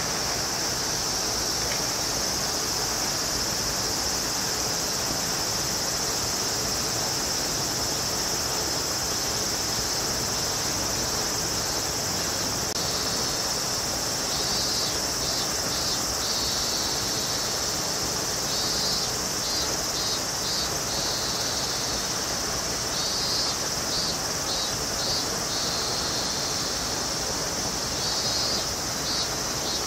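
Cicadas droning in a steady high-pitched summer chorus, with short groups of quick pulsed calls repeating every few seconds, over a steady rushing background noise.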